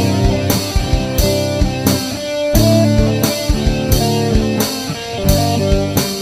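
Background music with a steady beat, a strong stroke about every two-thirds of a second, under held instrument notes.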